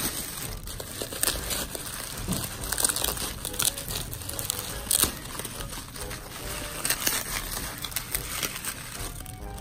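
Bubble wrap crinkling and crackling in irregular bursts as hands pull it open to unwrap a doll.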